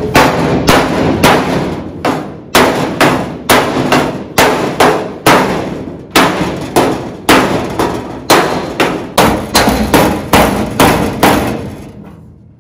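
Body hammer striking the sheet-steel rear lower quarter panel of a 1955 Chevrolet against a dolly held on the outside: a steady run of ringing metal blows, about two to three a second, dying away near the end. The dents are being beaten out to see whether the rusty panel can be saved.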